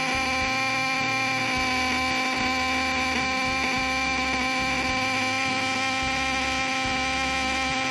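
Contact-breaker points of a home-made battery-and-ignition-coil 'strum platina' circuit vibrating open and shut, giving a steady, even electric buzz. The capacitor is wired correctly across the points, so they run without overheating.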